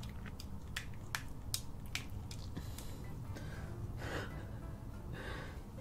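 Thick cheese dip squishing and dripping off a piece of seafood as it is lifted from the bowl, close to the microphone: scattered small wet clicks, with two softer hisses in the second half.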